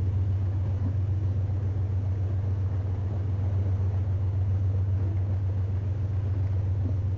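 An engine running with a steady low drone and an even rush of noise over it, with no change in speed.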